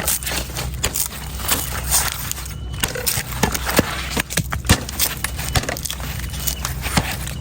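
Knife chopping and shaving a coconut: a run of irregular sharp strikes and scrapes into the husk and shell, over a steady low hum.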